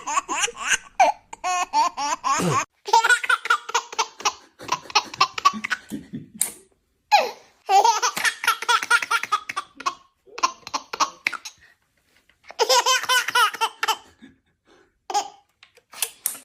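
A baby laughing in repeated high-pitched bouts of rapid, pulsing laughter, each a second or a few long, with short silent pauses between them.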